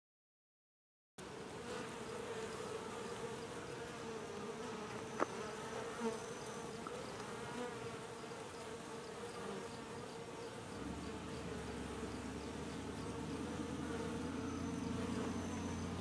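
Honeybees buzzing at a hive entrance: a steady hum of many bees that starts abruptly about a second in. A deeper, louder hum joins about eleven seconds in.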